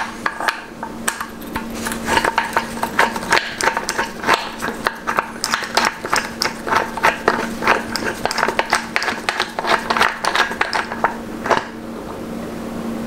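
Ratchet clicking rapidly and unevenly as a hex bit is worked back and forth to undo the 6 mm Allen bolt in the bottom of a motorcycle fork leg. The clicking starts about two seconds in and stops near the end, over a faint steady hum.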